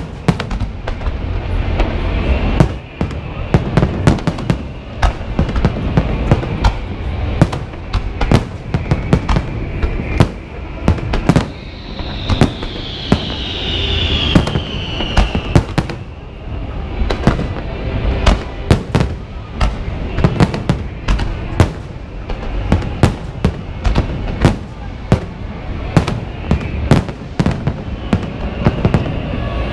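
Large fireworks display: rapid sharp bangs and crackles, several a second, over a steady low rumble of shell bursts.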